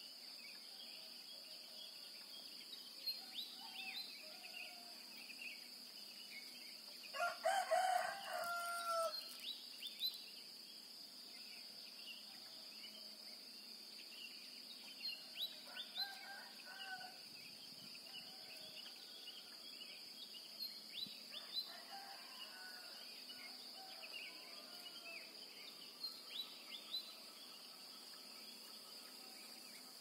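A rooster crowing loudly about a quarter of the way in, then twice more fainter, farther off, later on. Under it runs a steady high insect drone, with frequent short chirps of small birds.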